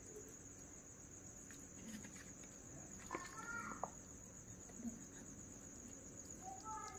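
Quiet background with a steady high-pitched insect trill. A few faint brief sounds and a light click come about three to four seconds in.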